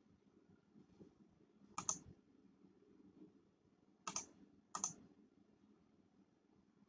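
Three sharp computer mouse clicks, one about two seconds in and two more close together a little past four seconds, over a faint low hum.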